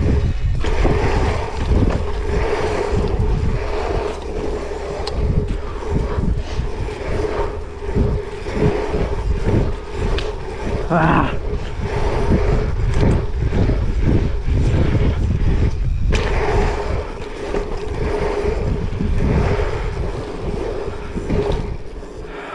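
Dirt jump bike's tyres rolling fast over an asphalt pump track, with a heavy low rumble of wind on the camera microphone and a steady hum underneath. The stiff hardtail frame gives off small irregular knocks and rattles as it goes over the rollers.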